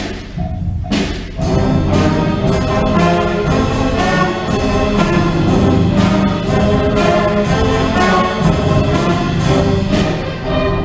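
Middle school wind band playing live, brass prominent. A few drum hits open it, then the full band comes in about a second and a half in with held chords.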